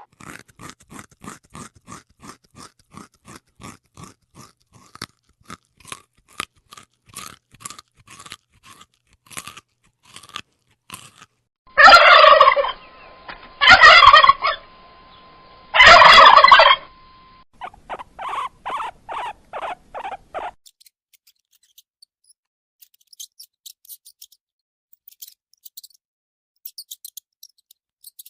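Animal calls: a run of faint quick clicks, then three loud harsh calls about two seconds apart, followed by a quicker string of shorter calls.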